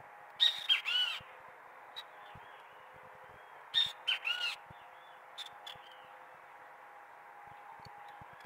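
A bird calling in two short bursts of quick arched chirps, about half a second in and again about four seconds in, over a faint steady hum.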